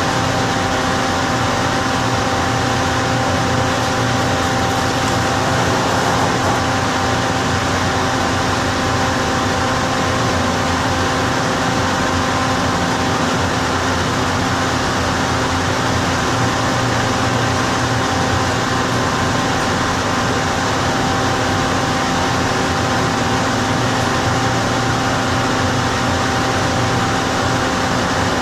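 Loud cabin ventilation fan of an inclined elevator car, running steadily as a constant whir with a few faint humming tones that do not change.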